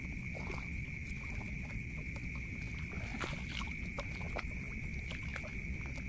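A steady, high-pitched chorus of night insects in a rice field, with scattered short clicks and rustles from people moving through the vegetation.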